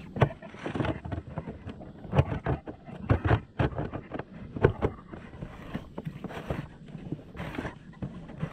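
Water slapping and splashing against a fishing kayak's hull in irregular bursts, one or two a second, with wind buffeting the microphone.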